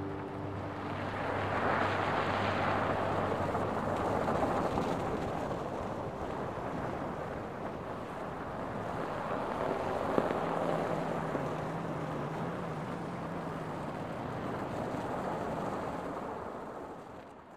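Steady wash of city road traffic noise from passing cars, with a faint engine hum rising out of it around the middle, fading out at the end.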